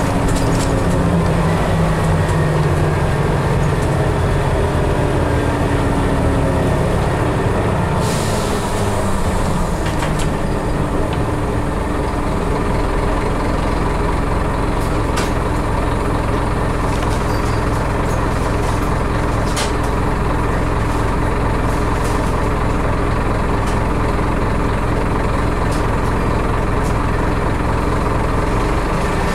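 Interior of a Scania CN270UB city bus on the move: the diesel engine and drivetrain running, pitch rising in the first couple of seconds and then falling away, settling into a steady low drone. A brief hiss about eight seconds in and a few sharp rattling clicks.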